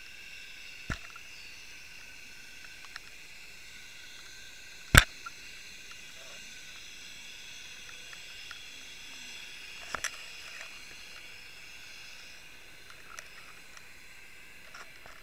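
Underwater recording: a steady hiss broken by a few sharp clicks and knocks. The loudest comes about five seconds in and a quick double one about ten seconds in, with fainter ticks between.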